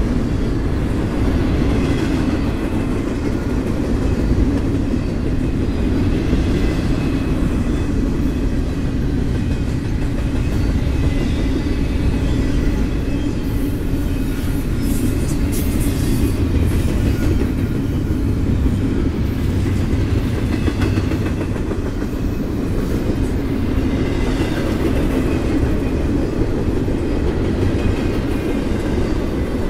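Double-stack intermodal freight train's container well cars rolling past on steel wheels: a steady, loud low rumble of wheels on rail, with a stretch of brighter high-pitched wheel noise about halfway through.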